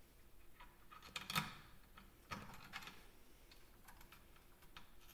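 Faint, scattered small metallic clicks and taps as M6 machine screws are handled and threaded by hand into an aluminium chill plate, the loudest tap about one and a half seconds in.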